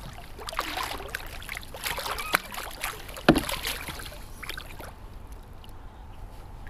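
A hooked channel catfish being landed at a kayak: irregular water splashes and handling knocks, the sharpest about three seconds in, growing quieter after about five seconds.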